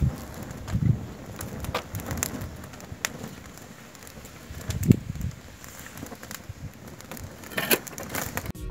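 Fuel poured on an anthill burning: the flames flare up in low whooshes several times, with light crackling in between.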